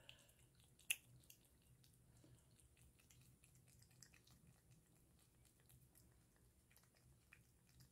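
Faint wet clicks of a cat licking a creamy paste treat from the tip of a squeeze tube, with one sharper click about a second in.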